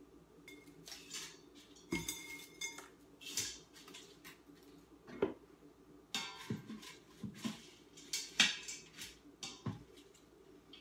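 Metal tongs clinking and scraping against the stainless steel inner pot of an Instant Pot pressure cooker as cooked chicken is lifted out. The knocks come irregularly, and the loudest is about eight seconds in.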